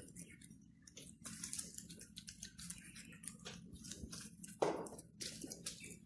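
Faint, irregular rubbing and soft pressing of hands rolling and stretching yeast dough into thin strands on a floured board, with one brief louder sound about three-quarters of the way through.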